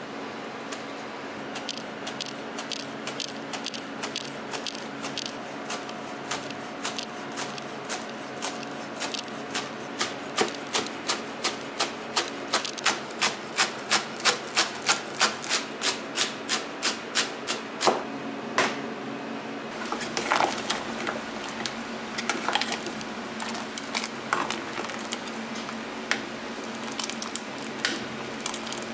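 A kitchen knife finely chopping green onions on a cutting board, a fast, even rhythm of about three strokes a second that gets louder as it goes. About twenty seconds in it gives way to cloudy tonkotsu pork-bone broth boiling hard in a pot, an irregular bubbling and popping.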